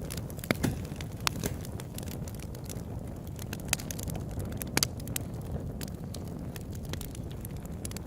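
Campfire crackling: irregular sharp pops and snaps, a few louder ones scattered through, over a steady low rumble.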